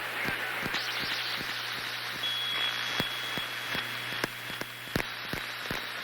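Ghostly frequencies sound effect: a steady hiss of static broken by irregular crackling clicks over a low hum, with a thin high whistle tone that comes in a little over two seconds in and holds steady.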